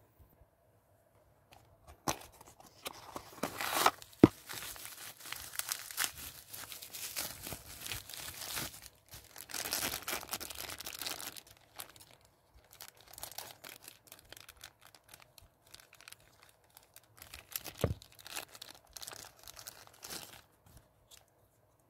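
Blind-box packaging being torn open by hand: a clear plastic bag and its paper insert crinkling and rustling, with a sharp snap about four seconds in and another near eighteen seconds. The rustling is densest in the first half and thins out toward the end.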